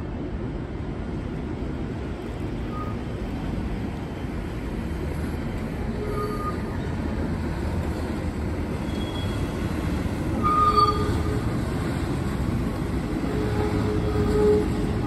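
PCC streetcar rolling slowly through a curve on steel rails: a low steady rolling noise that slowly grows louder, broken by several short wheel squeals, the loudest about ten seconds in and another near the end.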